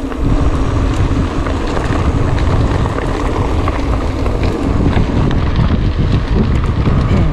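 Wind buffeting the microphone on a mountain bike riding downhill: a loud, steady rumble with many scattered small clicks and rattles.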